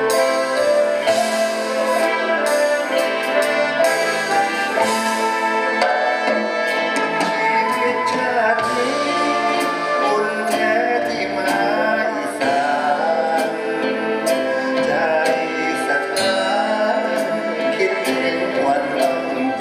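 A live band with brass, drums and double bass plays a Thai song, with a vocal line sung over it and drum strikes keeping the beat.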